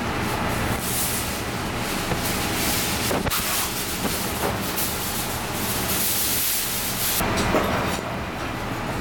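Steady hiss of background noise over a low hum, with a few soft knocks.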